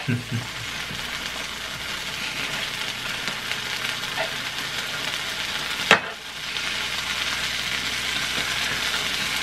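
Shredded mozzarella sizzling as it melts on a hot electric griddle, a steady hiss, while a spatula pushes and scrapes it around; one sharp tap about six seconds in.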